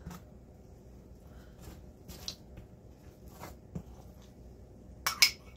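Butter knife spreading garlic butter over halved bread, with soft scraping strokes across the crumb. Near the end come two sharp clicks close together, the loudest sounds.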